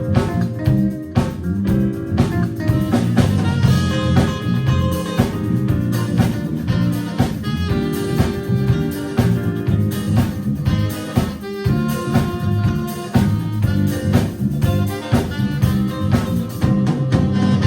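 Live jazz band playing an up-tempo instrumental: drum kit keeping a busy steady beat under bass and chords, with a saxophone on the melody.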